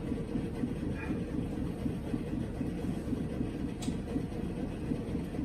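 Steady low mechanical rumbling hum, with a faint light tick about a second in and another near the end.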